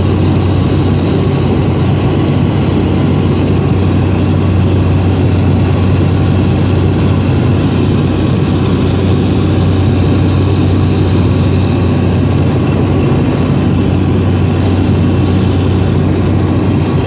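Light aircraft's engine and propeller droning steadily in flight, heard from inside the cabin: a loud, even drone with a strong low hum.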